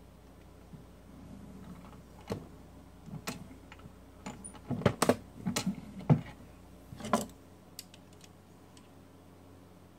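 Metal clicks and clacks from a single-stage reloading press as its handle is worked to seat a bullet in a 224 Valkyrie case and the loaded round is taken out. The clicks come in a scattered run from about two to seven seconds in.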